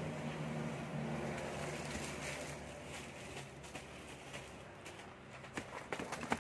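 A motor vehicle's engine running outside, a steady hum that fades away over the first few seconds. Near the end come a few sharp clicks and rustles of plastic packaging being handled on the counter.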